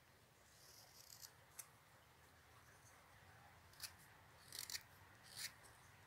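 Carving knife paring thin shavings from a small block of alder wood: a handful of short, faint slicing cuts.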